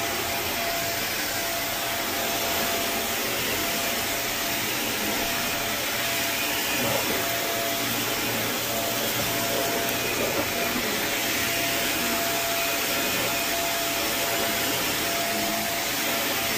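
Carpet steam-cleaning (hot water extraction) machine running steadily: a constant rushing vacuum noise with a thin, steady whine over it.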